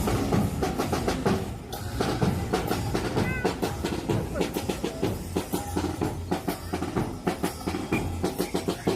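Hip-hop music with a heavy, steady drum beat and bass.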